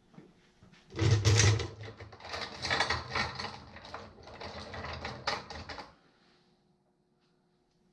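Metal-on-metal tool work on a Farmall H tractor's transmission top cover, which is stuck. A run of rapid clicking, clattering and scraping starts about a second in and stops abruptly after about five seconds.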